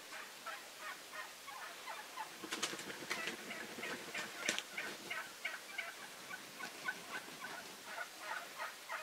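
Wild turkeys calling, many birds at once: a steady run of short overlapping calls, with a cluster of louder gobbles from about two and a half to four and a half seconds in.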